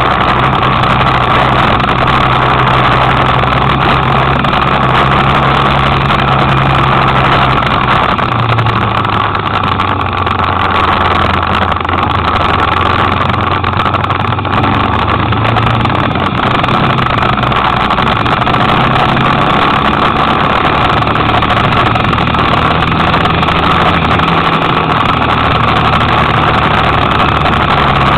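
Kymco Quannon 125cc motorcycle engine running while riding, its pitch shifting a few times with speed, over steady wind and road noise.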